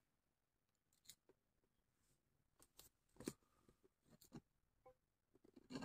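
Faint, scattered clicks and ticks of steel BBs being loaded one by one into the magazine of a CZ 75 P-07 Duty CO2 BB pistol. The clicks come irregularly, the loudest about three seconds in, with a quick cluster near the end.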